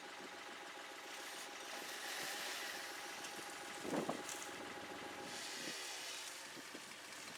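Engine idling steadily, a little louder for a second or so about two seconds in, with a short knock about four seconds in.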